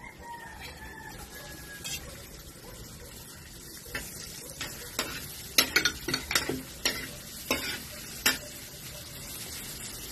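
Minced garlic sizzling in melted butter in a metal wok, stirred with a slotted metal spatula. From about four seconds in, a run of sharp clicks and scrapes comes from the spatula striking the pan, strongest in the middle.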